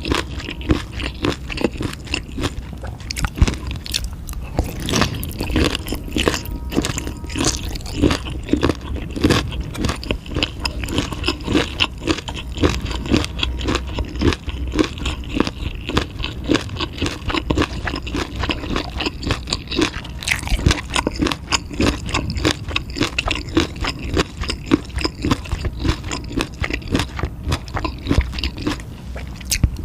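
A person chewing and biting food with a dense, unbroken run of wet clicks and crunches.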